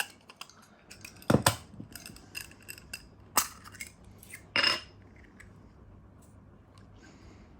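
Small nested metal cups being taken out of a VSSL flask tube and knocking against each other and the tube. A handful of sharp clinks, the last one ringing briefly, then quieter handling ticks.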